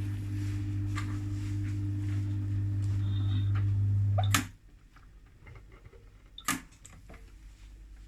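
Washing machine drain pump humming steadily with a low, even tone, then cutting off abruptly with a click a little over four seconds in; a second sharp click follows about two seconds later.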